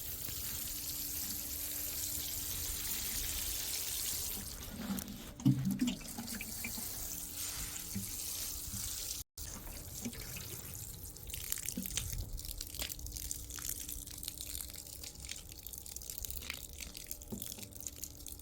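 Water spraying steadily onto rock stonecrop (Orostachys) plants in dry soil, stopping after about four seconds; a short knock follows, then scattered drips and soft ticks.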